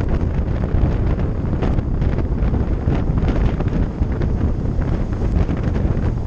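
Heavy wind buffeting the microphone outside a moving passenger train car, steady throughout, over the train's low running rumble.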